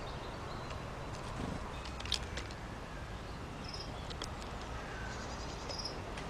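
A few short, high bird chirps over a steady low background rumble, with a sharp click about two seconds in.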